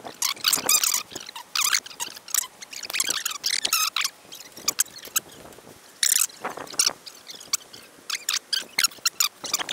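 Spinning reel's drag buzzing in short, irregular high-pitched bursts as a hooked pike pulls line off against a loosely set drag.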